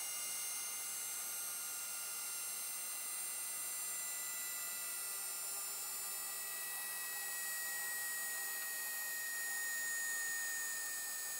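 Rotor of a Boeing 737 vertical gyroscope spinning down after its power is cut. It gives a thin, steady whine of several high tones that sinks slightly in pitch near the end.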